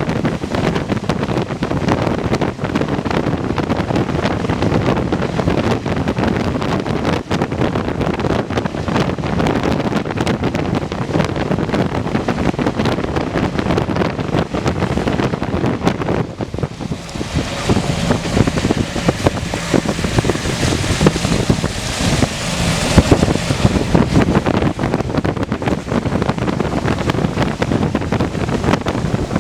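Wind buffeting the microphone, a steady rumbling rush. Past the middle, a brighter hiss joins for several seconds, then fades back.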